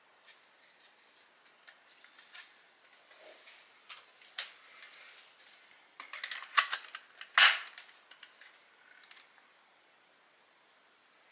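Small clicks, taps and scrapes of hard parts and tools being handled, irregular and scattered, with a cluster of sharper clicks about six to seven and a half seconds in.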